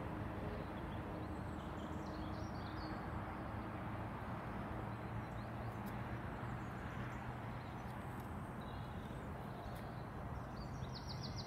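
Steady outdoor background noise with a few faint high bird chirps, about two and a half seconds in and again near the end.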